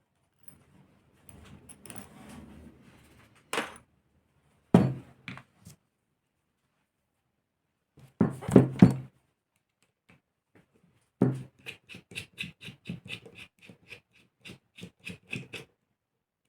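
Hand tools and small metal engine parts being handled on a workbench during a model engine teardown: scattered knocks and clicks, the loudest a cluster of knocks a little past halfway, then a run of light quick clicks, about three or four a second, near the end.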